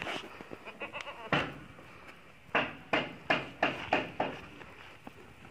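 Goats bleating: a single bleat about a second in, then a quick run of about six short bleats.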